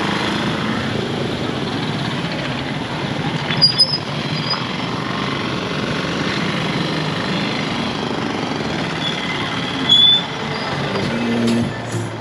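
Busy street noise of passing road traffic, a steady dense rumble with a few short sharp sounds and high chirps about four seconds in and about ten seconds in.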